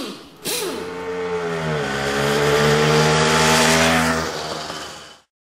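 An engine revving as a sound effect: its pitch falls sharply a few times, then holds steady and loud before fading out near the end.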